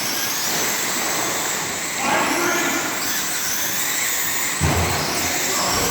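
Radio-controlled offroad race cars running laps on a dirt oval: a steady, high-pitched whine of motors and tyres, with one low thud about four and a half seconds in.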